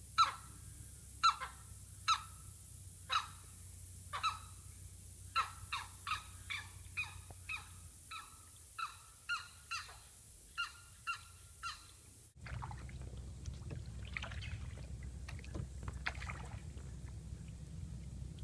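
A marsh bird calling over and over with short honking notes, about one a second at first, then a quicker run of notes in the middle. About twelve seconds in the calls break off at a cut, and a steady low rumble follows with only faint calls.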